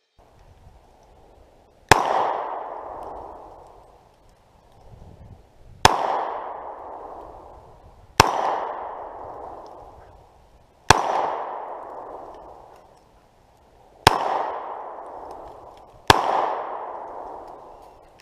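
Glock 23 pistol in .40 S&W fired six single, unhurried shots a few seconds apart, starting about two seconds in. Each shot is followed by a long echo that dies away over a second or two.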